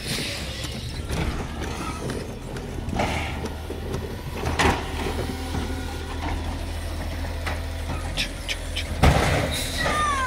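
Natural-gas automated side-loader garbage truck running, its low engine hum swelling in the second half, with scattered mechanical clanks and a louder knock about nine seconds in.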